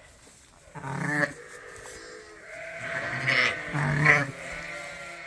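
Ewes and lambs bleating: several separate bleats, the loudest about four seconds in.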